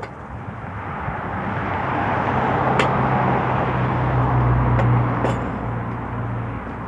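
A motor vehicle going past: its engine and road noise swell over about four seconds under a low steady hum, then fade.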